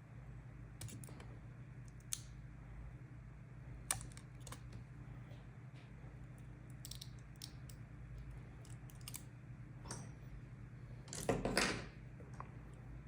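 Light clicks and taps of small parts and tools being handled at a workbench, with a steady low hum underneath. Near the end comes one brief, louder crackling rustle lasting about half a second.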